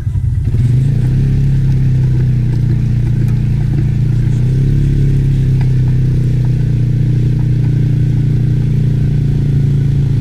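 ATV engine running steadily under load, its pitch stepping up slightly about four and a half seconds in. The sound is muffled, with little above a low hum.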